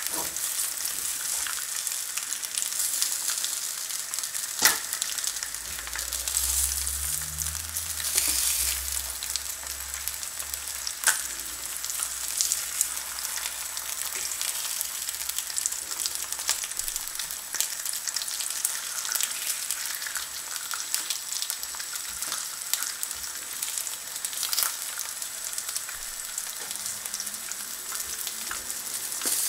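Bacon, black pudding and bread sizzling steadily in a De Buyer carbon steel frying pan, with a few sharp knocks as a wooden spatula and metal tongs touch the pan while the black pudding is turned.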